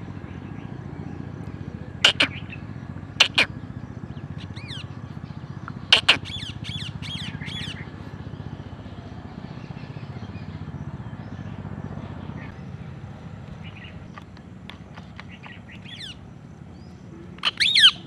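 Rose-ringed (ringneck) parakeet giving short, sharp, shrill calls: two pairs of calls about two and three seconds in, a loud call at about six seconds that runs into a quick series of chirps, fainter chirps later, and a loud burst of calls near the end. A steady low rumble runs underneath.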